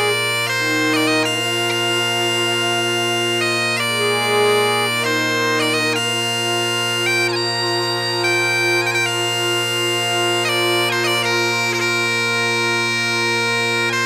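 Scottish highland bagpipes playing a tune over a steady low drone, the melody moving through quick note changes with brief grace-note ornaments.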